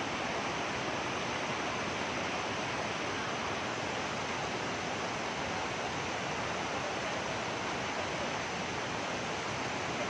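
Rushing water of a waterfall and its stream, muddy and running high with monsoon rain: a steady, even rush.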